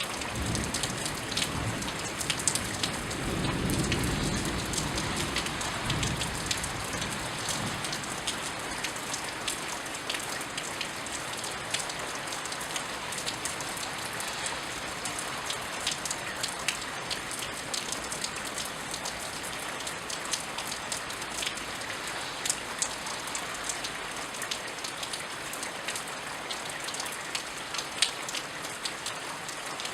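Steady rainfall with frequent sharp ticks of drops striking close by. A low rumble of distant thunder swells in the first few seconds and fades away.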